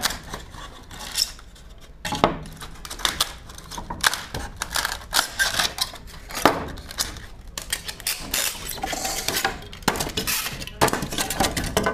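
Pieces of expanded polystyrene foam (styrofoam) rubbing and scraping against each other as cut scrap is pulled off a block by hand, irregularly, with a few sharp knocks.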